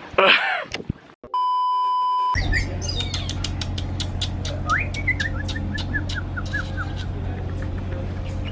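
A short steady electronic-sounding beep, then a bird chirping, with a falling run of about ten quick notes, over a steady low hum and scattered clicks.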